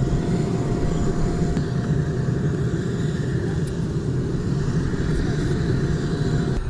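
Steady low rumble of jet engines running, with a faint steady whine above it.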